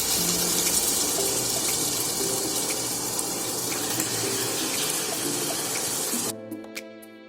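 Chicken pieces sizzling and frying in hot masala in the biryani pot, a steady hiss. About six seconds in it cuts off and violin background music takes over.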